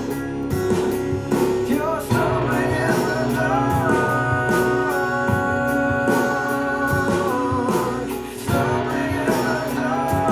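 Recorded music played back over a hi-fi loudspeaker system: a singing voice over guitar.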